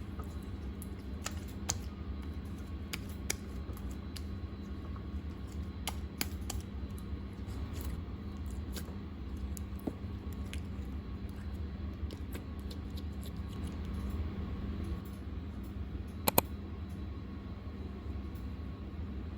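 Clear slime being handled, giving scattered small clicks and pops at irregular intervals, the loudest a sharp double click about 16 seconds in, over a steady low hum.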